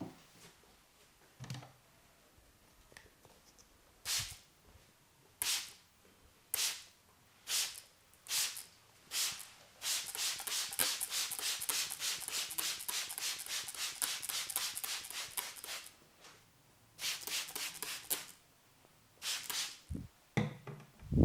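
Hair crackling as it is pulled and rubbed between a masseur's fingers in Indian head-massage hair cracking: single crisp strokes about once a second, then a fast run of strokes for about six seconds, then a short cluster and a few more strokes near the end.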